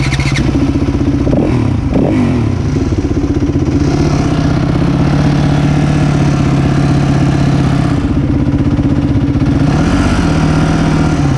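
Yamaha WR250F four-stroke dirt bike engines running at idle with a fast, steady pulse. The engine note rises briefly about a second and a half in and again near the end, and runs a little stronger and steadier through the middle.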